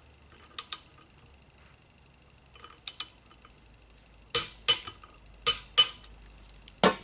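Sharp metallic knocks and clinks of metal parts struck together, mostly in pairs, sparse at first and then coming faster and louder in the second half.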